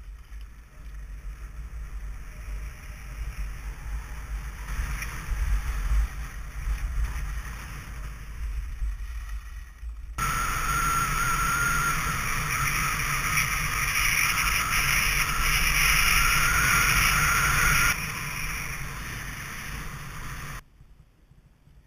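Wind buffeting the microphone and skis hissing over a groomed piste while skiing downhill. About halfway through the hiss turns abruptly louder and brighter, eases a little near the end, then cuts off sharply.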